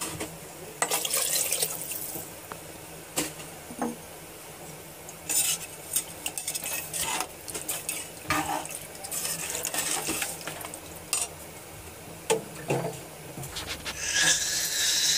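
Steel slotted spoon scraping and clinking against the inside of an aluminium pressure cooker, stirring rice and red lentils in water. It comes in several spells of stirring, the loudest near the end.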